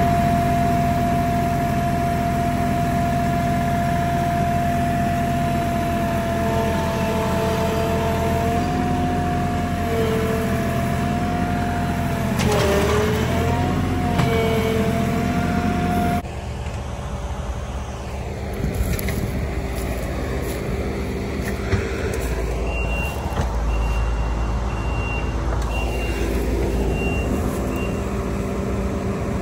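Compact tractor's diesel engine running steadily with a wavering whine over it. About sixteen seconds in the sound changes suddenly to the engine working under load as the front-loader bucket digs soft soil, with intermittent beeping from a machine near the end.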